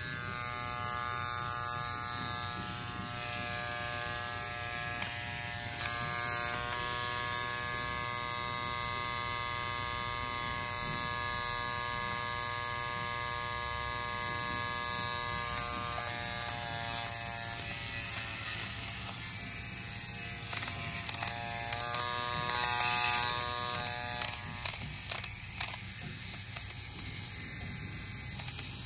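AVA EP8 wireless rotary tattoo pen running: a steady electric motor buzz. Its pitch shifts a couple of times in the second half. It stops about four-fifths of the way through, leaving scattered clicks of handling.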